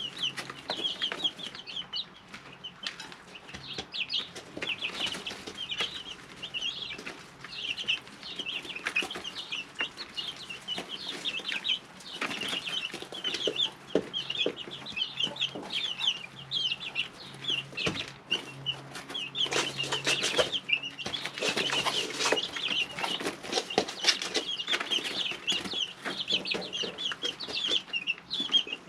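Three-week-old chicks peeping continuously in a brooder, many short high chirps overlapping, over a faint steady low hum. Rustling and tapping from the chicks moving about come and go, busiest about two-thirds of the way through.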